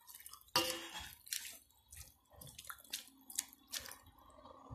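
Pork-bone broth dripping and splashing in a pot of mustard greens: about half a dozen separate, irregular splashes and drips.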